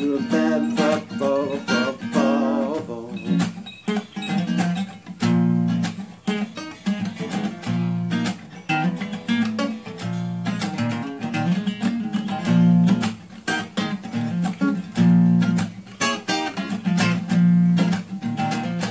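Cutaway steel-string acoustic guitar strumming chords in an instrumental passage, without singing.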